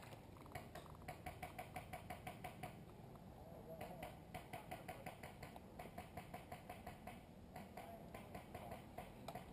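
Distant airsoft guns firing in bursts of rapid, evenly spaced clicks, about seven a second, each burst lasting one to two seconds with short gaps between.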